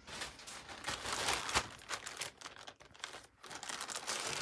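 Plastic zip-lock bag crinkling as it is handled and its zip seal pulled open, in a run of irregular crackles with a short lull about three seconds in.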